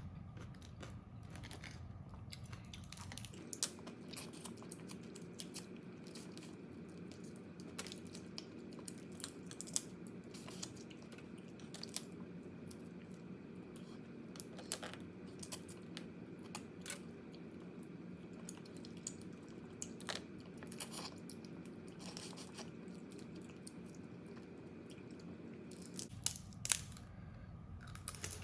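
Crab shells cracking and crunching between teeth, with chewing: sharp irregular cracks over a steady low background hum, the loudest few near the end.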